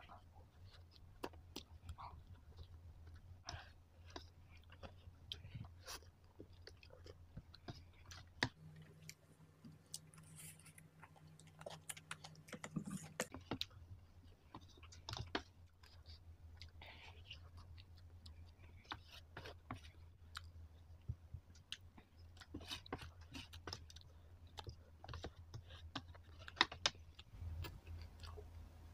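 Close-up eating sounds of spicy instant noodles: quiet chewing with scattered short clicks of wooden utensils against the plastic tray.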